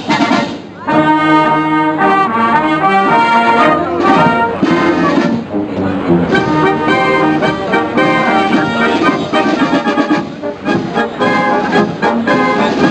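Military wind band playing a piece, with brass (trombones, trumpets) and clarinets. The music breaks off briefly just after the start, then resumes at full strength.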